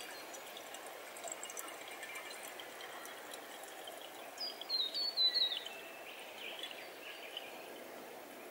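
Water poured from an aluminium pot into the boiler reservoir of an Atomic espresso maker, a quiet steady trickle. About halfway through, a bird calls with a short run of falling high notes.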